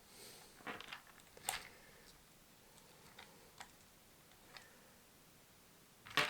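Faint, scattered small clicks and taps from a metal multi-tool and a plastic toy being handled as its battery compartment is worked open, with sharper clicks near the end.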